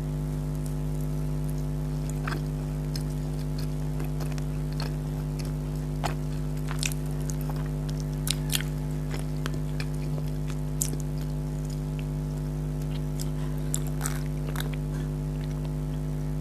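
A person chewing and eating, with scattered short mouth clicks and crackles, over a steady low hum made of several held tones.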